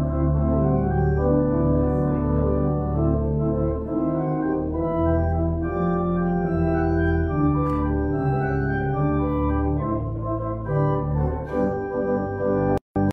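Church organ playing sustained full chords over a held pedal bass line, the chords changing every second or so. The sound cuts out for a split second near the end.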